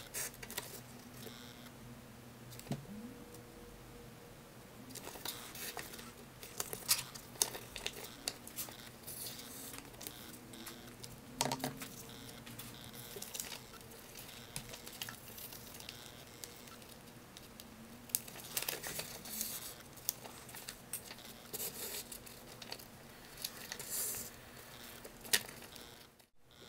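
Folded paper sheets rustling and crinkling as they are handled and sewn onto cords with waxed thread, with scattered soft clicks and taps at irregular intervals over a faint steady hum.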